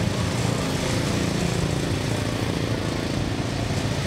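Small engines of miniature boat-shaped parade cars running at low speed, a steady drone that wavers a little in pitch.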